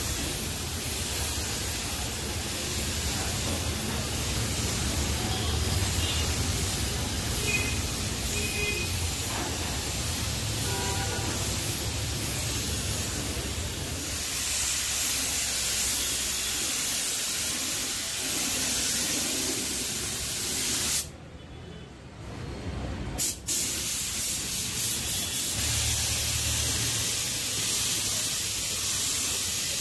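Gravity-feed paint spray gun hissing steadily as compressed air atomises clear coat onto a car door. The spray stops for about two seconds roughly two-thirds of the way through, then starts again.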